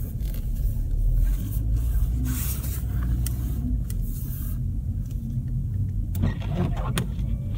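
Car on Kumho WinterCraft SUV Ice WS31 studded winter tyres driving slowly through deep, fresh, unpacked snow, heard from inside the cabin: a steady low rumble with irregular crackles and rushes of snow under the tyres.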